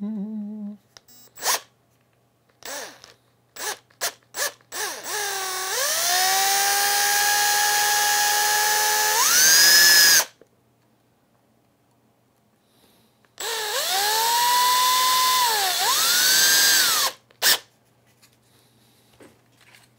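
Cordless drill boring small holes through a 3D-printed PLA/PHA plastic part. A few short clicks come first, then two runs of several seconds each; the motor's whine climbs in pitch just before each run stops.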